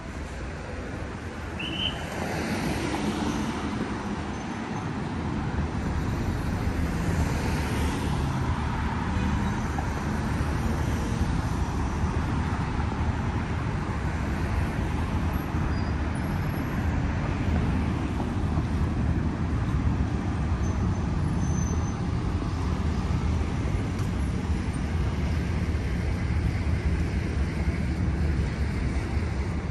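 City street traffic noise: cars driving past, a couple of them swelling up and fading within the first eight seconds, over a steady low road rumble.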